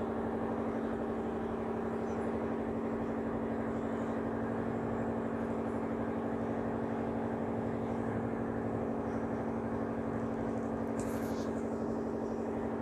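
Steady mechanical hum at one constant pitch, with a few faint clicks near the end.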